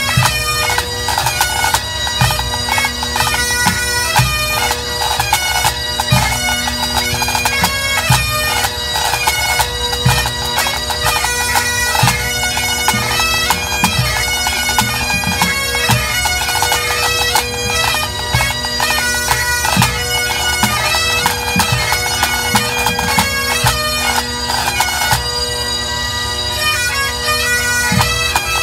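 Pipe band playing: Great Highland bagpipes sounding a melody over steady drones, with snare drums and a bass drum keeping the beat.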